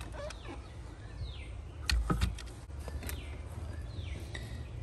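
An RV door lock handle being shoved into a tight door cutout: a few clicks, and a louder thump with knocks about two seconds in as it is forced home. A bird calls twice in short falling chirps over a steady low outdoor rumble.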